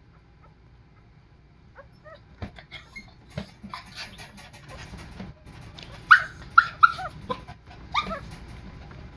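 Two-week-old puppies whimpering and squealing: a few faint squeaks from about two seconds in, then a quick run of loud, short squeals that fall in pitch a little after six seconds, and one more near eight seconds.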